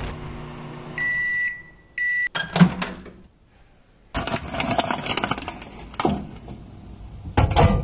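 Microwave oven beeping twice, then its door unlatching with a clunk, followed by rustling handling sounds and a few clicks.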